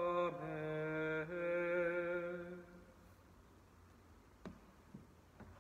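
A man's unaccompanied voice singing the closing Amen of a plainchant office hymn, the final note held and fading out about two and a half seconds in. Near the end, a few soft knocks as a hymn book is set down on a wooden pew ledge.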